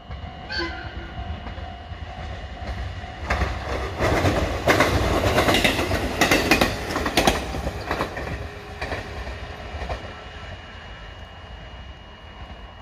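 Electric commuter train passing close by, its wheels clicking over the rail joints. It grows louder as it approaches, is loudest with a rapid run of clicks around the middle as the cars go by, then fades as it pulls away.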